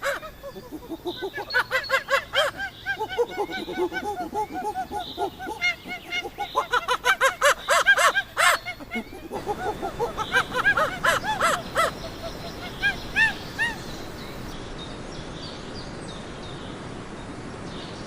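A flock of birds calling: many short, pitched, overlapping calls that rise and fall, thinning out near the end to leave a steady hiss.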